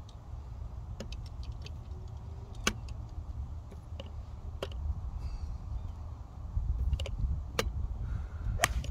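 Wind rumbling on the microphone, with golf clubs clinking in a bag on the cart every second or two and a sharper click near the end.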